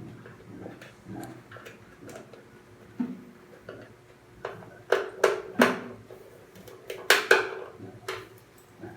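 Sharp metallic clinks and knocks, a few scattered early on and a cluster of louder ones about halfway through and again a little later, over a faint steady hum.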